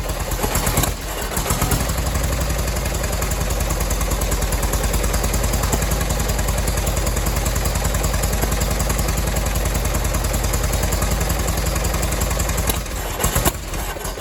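Rebuilt 226-cubic-inch four-cylinder engine of an Allis-Chalmers WD tractor running on its first start after the rebuild, with a steady, even beat. It falters briefly about a second in, then runs steadily until it stops near the end.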